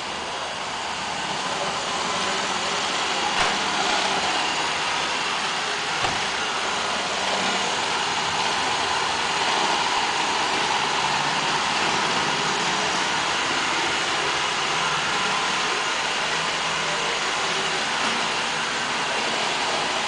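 Roomba robot vacuum running on a hardwood floor: a steady whirring hiss of its vacuum motor and brushes that grows louder over the first few seconds, with two brief knocks a few seconds in.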